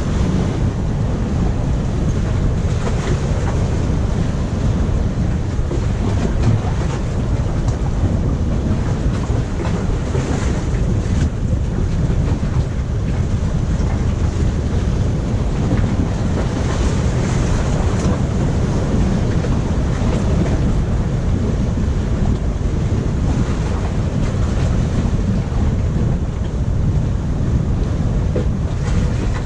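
Steady surf washing against jetty rocks, with wind rumbling on the microphone.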